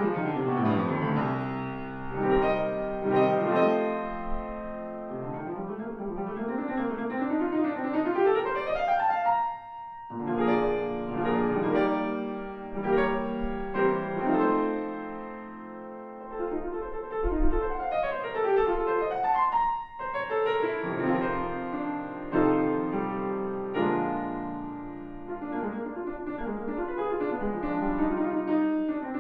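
Solo grand piano playing classical music in fast running scales that sweep down and up the keyboard, broken by a brief pause and held note about ten seconds in and again about twenty seconds in.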